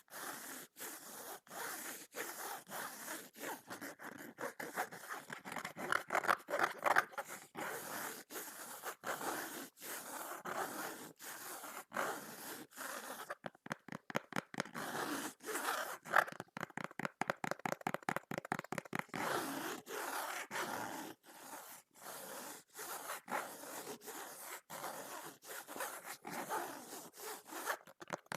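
Hands scraping and rubbing on a book in repeated short strokes, with two spells of fast, rapid-fire scratching in the middle.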